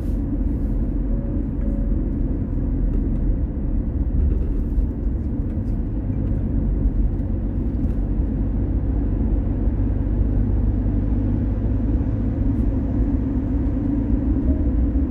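Steady low rumble of a car driving along a road: tyre and engine noise with no distinct events.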